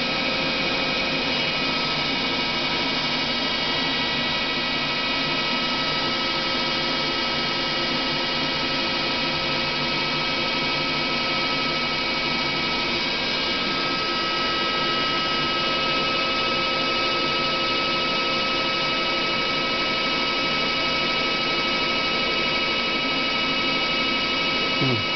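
Daewoo Puma 150G CNC lathe running, a steady machine hum and whine made of several fixed tones that holds without change.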